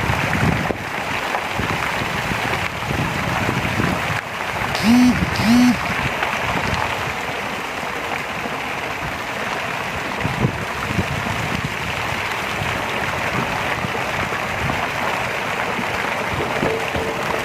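Steady rushing of running water, with two short squeaky tones close together about five seconds in.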